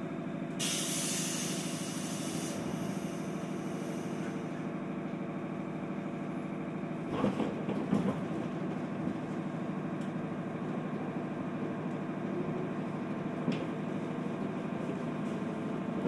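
Inside a JR 211 series electric train car (MoHa 210-3025): the steady hum of the car's running and onboard equipment. A hiss starts about half a second in and lasts about two seconds, and a few knocks come about seven seconds in.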